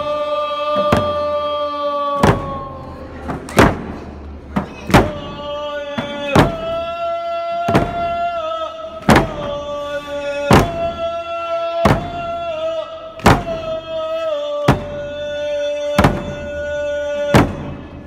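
A group of voices singing a Nuu-chah-nulth paddle dance song in long held notes, with hand drums struck together in a slow, steady beat of about one stroke every second and a half.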